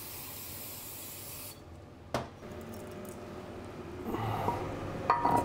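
Compressed-air blow gun hissing steadily as a transmission part is blown clean, cutting off about a second and a half in. A sharp click follows, then the rubbing and clinking of steel gear parts being handled as the shaft is fitted into the aluminium transmission case.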